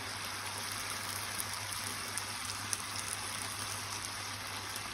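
Tomato masala sauce sizzling and simmering in a frying pan around chicken breasts: a steady hiss with a few small pops.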